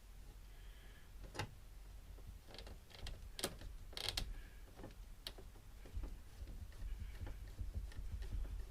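Scattered light clicks and knocks of a plastic vent cover being handled and fitted back into place.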